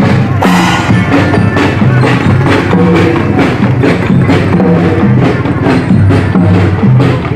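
Loud music with a steady beat: a repeating bass line under driving percussion strikes.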